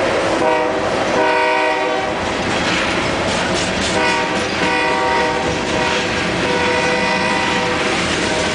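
Loaded coal hopper cars rolling past, wheels clacking over the rail joints with a steady rumble. Over it, a locomotive horn sounds in a string of short blasts, each under a second.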